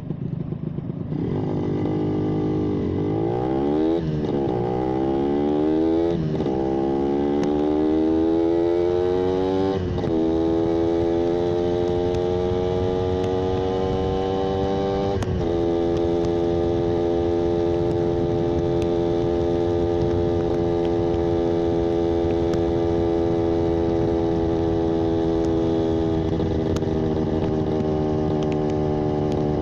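Yamaha 125ZR's single-cylinder two-stroke engine accelerating hard through the gears. The pitch climbs and falls back at each of about four shifts, then the engine holds a steady speed and eases slightly near the end.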